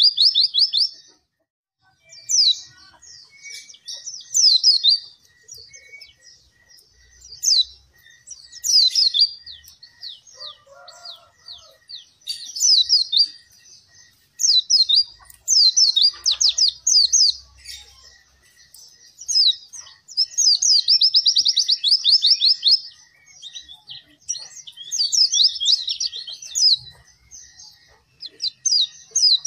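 White-eye (pleci) singing energetically: repeated phrases of rapid, high chattering trills, each one to two seconds long, with short pauses between.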